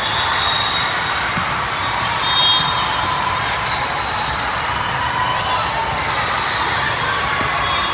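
Steady din of a large indoor volleyball tournament hall: many voices mixed together, with balls thudding and bouncing on the court floor and faint short squeaks.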